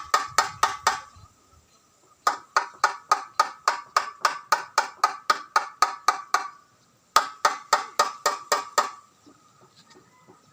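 Rapid, even tapping on something that rings, about five strikes a second. It comes in three runs with short pauses between, and the last run trails off into faint clicks.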